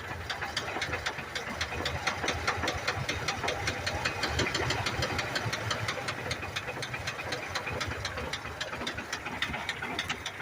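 A 1982 Ford F-100's 3.8-litre V6 idling with a rapid, even knocking: a rod knock.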